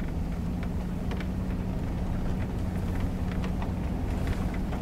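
Large SUV's engine droning steadily, heard from inside the cabin, as it drives slowly over a rough dirt track, with scattered light clicks and rattles over a low rumble.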